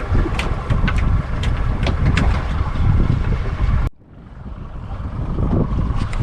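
Wind buffeting the microphone on a small boat at sea: a loud, steady rumble with several sharp knocks in the first two seconds. The sound cuts out abruptly about four seconds in and then builds back up.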